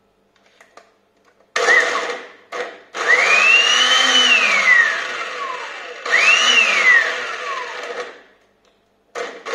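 Electric mixer grinder (mixie) with its small jar, pulsed on and off about five times to coarsely crush onion, green chillies and curry leaves. Each run has a motor whine that climbs as it spins up and falls as it winds down. The two longest runs are two to three seconds each; the others are brief.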